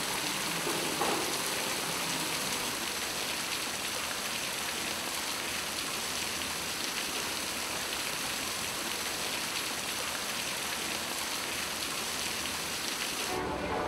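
Fountain water splashing and spattering steadily into its basin from bottle-shaped spouts. It cuts off suddenly near the end.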